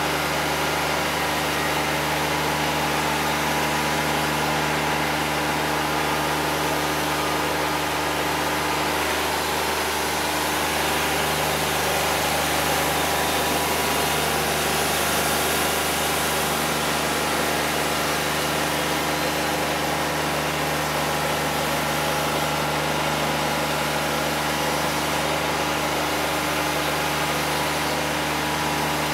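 The engine of a Wood-Mizer LT50 Wide portable band sawmill running at a steady speed, a constant even-pitched hum.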